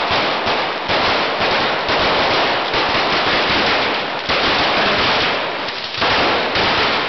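A string of firecrackers (a traca) going off, a loud, continuous rapid crackle of bangs like machine-gun fire.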